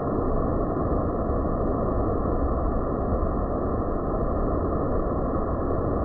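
Water of a rocky waterfall cascade rushing over stone, a steady, dull roar heavy in the low end, with no higher hiss.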